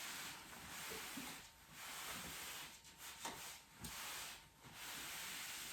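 Fiberglass wall covering being rubbed flat against the glued wall: a run of about five soft rubbing strokes, each half a second to a second and a half long.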